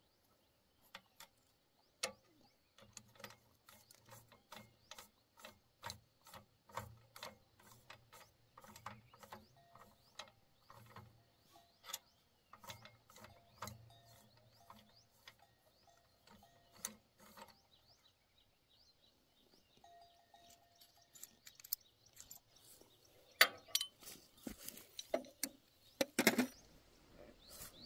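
Metal hand-tool work: a long run of light, rapid clicks and clinks, then a few louder clanks and rattles near the end.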